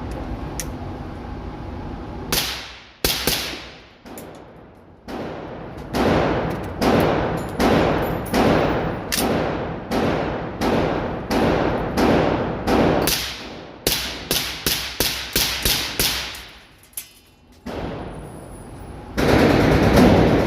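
Smith & Wesson M&P 5.7 pistol firing about twenty 5.7×28mm rounds with a sharp crack and ringing echo each. Shots start widely spaced, settle into a steady pace of roughly one every three-quarters of a second, then speed up near the end as the magazine is emptied.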